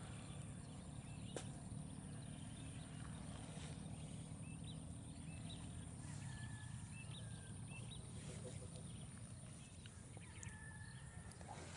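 Whistling ducks calling: scattered short, high, whistled chirps, clustered from about four to eight seconds in and again near the end, over a steady low background rumble.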